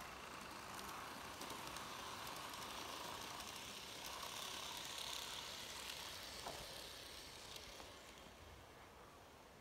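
N-gauge model electric trains running on plastic track: a faint, steady whir of motors and wheels with a few light clicks, swelling midway and fading about eight seconds in.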